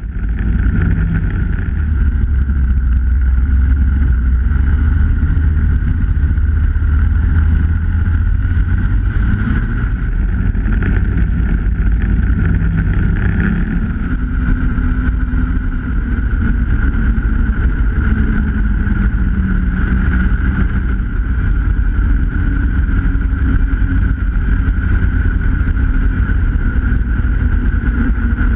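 Snowmobile engine running steadily at trail speed, heard from on board the sled: a low rumble with a steady high whine over it. It cuts in suddenly at the start.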